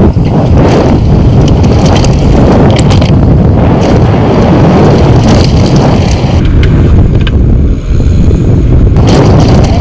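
Heavy wind buffeting an action camera's microphone as a downhill mountain bike runs fast down a dry dirt trail, with the rumble of the tyres and a steady stream of rattling knocks from the bike over the rough ground.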